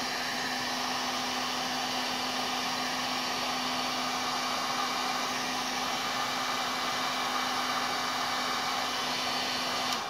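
Electric heat gun running steadily, blowing hot air to shrink heat-shrink tubing over crimped wire connections: an even rush of air with a steady low hum under it, cutting off at the very end.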